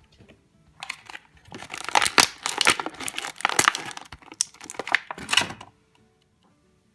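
Toy packaging crinkling and tearing as a small toy is unwrapped by hand. The crackling starts about a second in and stops suddenly near six seconds.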